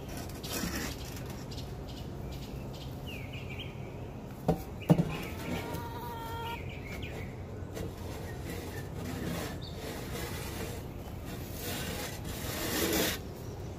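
A wooden-handled hand scraper knocking twice against the coop floor about four and a half seconds in, then scraping droppings across it, with a longer, louder scrape near the end. Short bird chirps come and go throughout.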